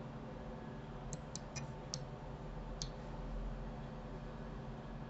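Five light, sharp clicks of computer input while rotating a model in Blender, spread unevenly between about one and three seconds in, over a faint steady low hum.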